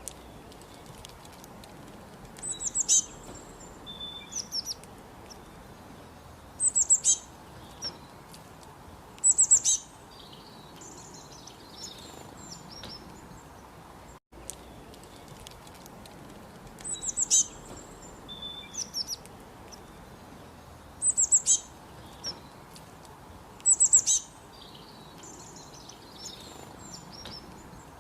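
Small bird chirping in short clusters of quick, high, falling notes every few seconds, over a steady background hiss. The same passage of calls repeats about halfway through, as a looped recording does.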